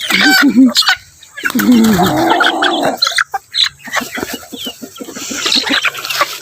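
A flock of domestic chickens clucking as they gather to be fed, with a couple of longer calls early on and then a dense run of short clucks and pecking ticks.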